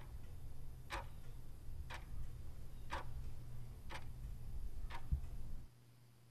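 Clock ticking steadily, about one tick a second, six ticks in all, over a low hum that cuts off suddenly near the end.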